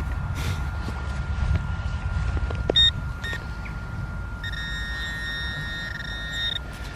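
Metal detector sounding off on a buried target: two short beeps about three seconds in, then a steady tone held for about two seconds, over a low rumble.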